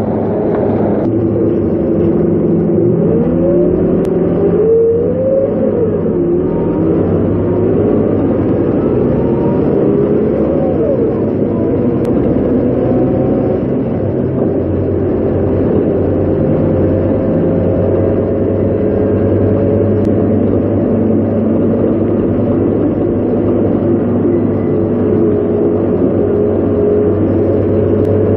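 Scania K230UB city bus's diesel engine and ZF automatic gearbox, heard from inside the cabin while the bus is under way. The pitch slides up and down several times in the first few seconds, then climbs slowly through the second half as the bus pulls.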